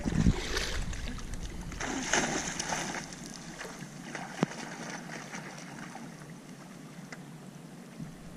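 A dog wading and splashing through shallow water. The splashing is loudest about two seconds in, then grows fainter as the dog moves away.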